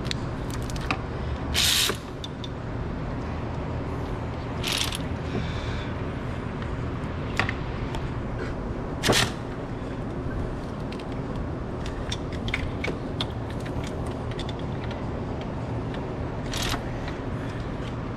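Hand ratchet clicking in short, irregular runs while tightening the 10 mm bolts of a thermostat housing, with a few louder metal clinks of the tool against the bolts and housing.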